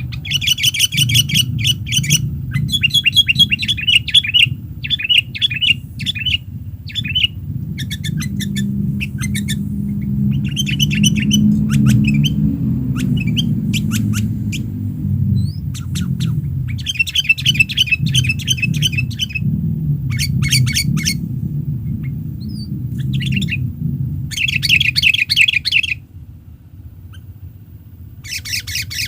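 Sooty-headed bulbuls singing in repeated bursts of quick, bright chattering phrases separated by short pauses, over a steady low rumble that drops away about 26 seconds in.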